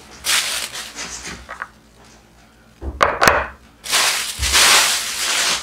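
Thin plastic grocery bag rustling and crinkling as it is handled, in two spells, with two sharp knocks about three seconds in.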